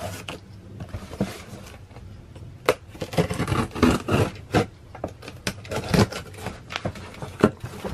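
Cardboard shipping box being cut open and handled: scraping along the taped seam, then a busy run of cardboard scrapes, rustles and sharp knocks as the flaps are pulled back.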